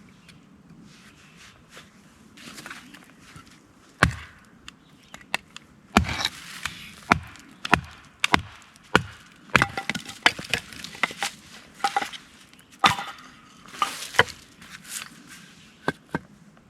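Firewood being split with a knife: one sharp knock of the blade striking the wood, then a steady run of sharp knocks, about one or two a second.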